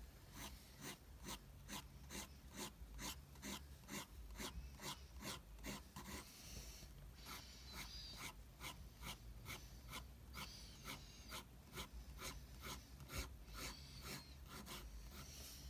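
Black pen scratching across paper in short, faint, repeated strokes, about two or three a second, as fine hair lines are inked over a pencil drawing.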